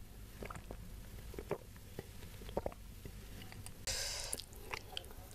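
Close-miked mouth sounds while drinking: soft swallows and small wet clicks, then a short hissing rush about four seconds in.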